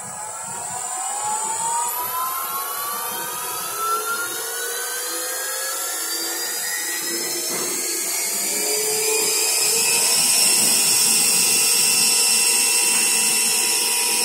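CNC milling machine spindle motor, run by a variable frequency drive, speeding up towards 4000 RPM: a whine with several tones rising together for about ten seconds, then holding steady at speed.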